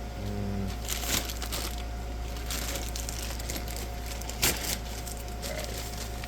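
Light handling noise: faint crinkling and a few sharp clicks, the loudest about four and a half seconds in, over a steady electrical hum.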